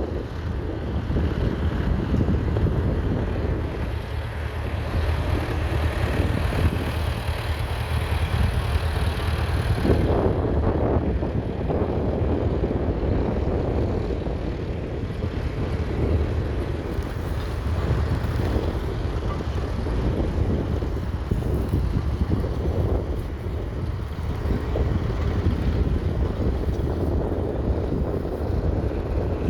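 1921 Fordson Model F's 4.1-litre four-cylinder distillate engine running steadily, with wind buffeting the microphone.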